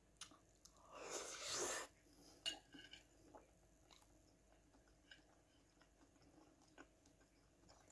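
Close-up mouth sounds of someone chewing a mouthful of shredded salad, with a short noisy burst about a second in. A fork clicks on a china plate a moment later, followed by a few faint ticks in otherwise near silence.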